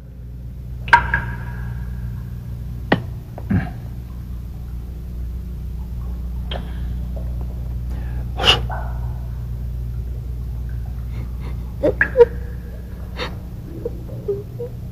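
A low steady rumble with scattered sharp knocks and clinks, several of them ringing briefly like metal striking stone.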